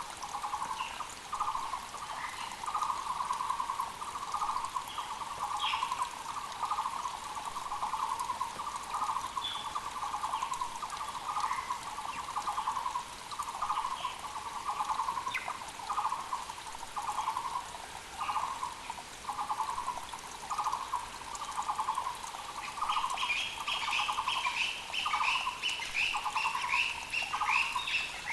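Taiwan barbet (Muller's barbet) calling one low note over and over, a little more than once a second, with short chirps from other birds now and then. From about four-fifths of the way through, another bird adds a fast run of higher notes.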